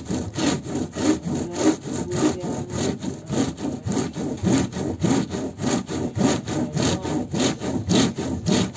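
Bamboo rolling mat worked back and forth under gloved hands, its wooden slats rubbing and clattering in a quick, even rhythm of about four strokes a second as wet wool is rolled and felted into dreadlocks.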